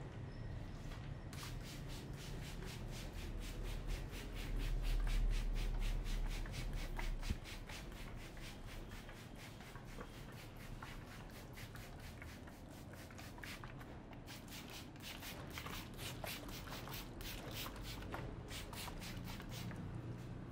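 Hands rubbing rapidly over hair and scalp in an Indian head massage, an even run of about four strokes a second that pauses briefly about two-thirds through and then resumes. A low rumble swells for a few seconds early on.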